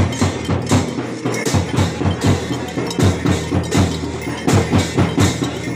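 Drum and cymbals of a bhajan-kirtan playing an even, fast beat, with low drum thumps under the cymbal clashes.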